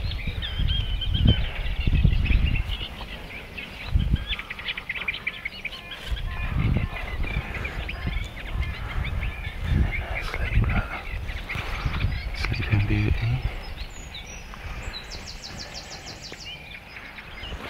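Songbirds chirping and singing over repeated low rumbles and thumps of wind and handling noise on the microphone as the camera is carried about.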